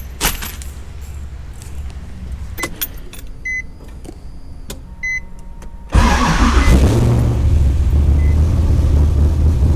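A few small clicks and short beeps, then about six seconds in an LS3 V8 swapped into a Nissan 350Z starts and settles into a loud, steady idle. It is the first start after a new header gasket, run to listen for exhaust leaks.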